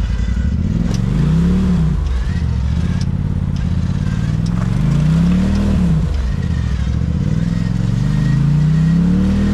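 Side-by-side UTV engine revving up and falling back three times, the pitch climbing over a second or two and then dropping away each time, under throttle on an icy climb.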